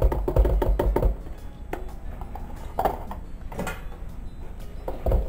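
Cream glugging out of a carton into a pot in a quick run of pulses for about the first second, then a few scattered knocks as the pour ends.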